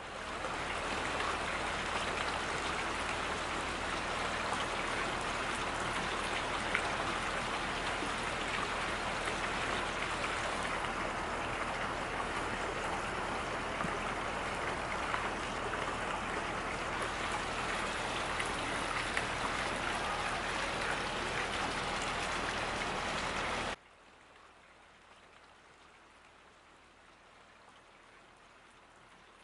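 Heavy rain falling in a steady downpour, a dense even hiss of drops. It cuts off suddenly about 24 seconds in, leaving only a faint quiet background.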